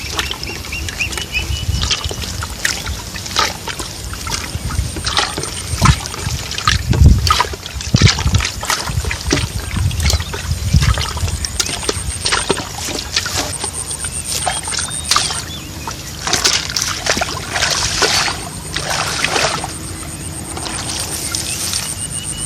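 Water splashing, trickling and pouring, with irregular knocks and rustles, as bamboo tube eel traps are handled and emptied in shallow water. A faint, high pulsing buzz runs under it from a few seconds in.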